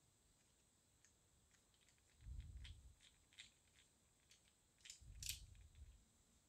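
Faint small clicks and scrapes of a screwdriver bit turning a revolver grip screw as the new grip is tightened down, with soft low bumps of handling twice, about two seconds in and again near the end.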